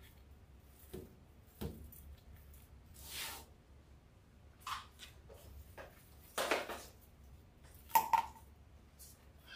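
Poly burlap deco mesh being handled and worked into a wreath board: a handful of separate brief rustles and sharp clicks, the loudest about two-thirds of the way through.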